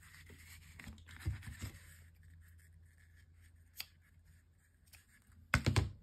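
Scissors snipping sewing thread close to the felt: a quick cluster of sharp snips near the end, after quiet rustling as the fabric is handled.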